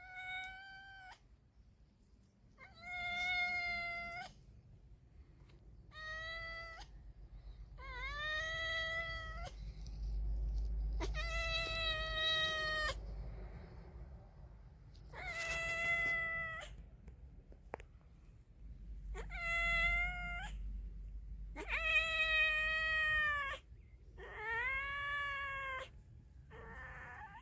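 Cat yowling while mating: about nine long, drawn-out calls in a row, some rising at the start, with a short raspy sound near the end.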